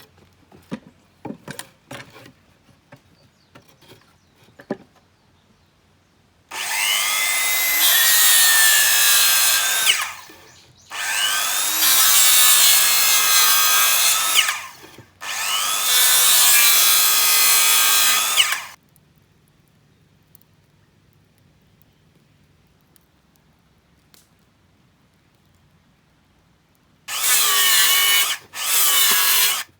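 Electric power saw cutting firewood: three long cuts of about three to four seconds each, the motor's pitch rising and falling under load, then short bursts near the end. Before the cuts come a few light knocks of wood being handled.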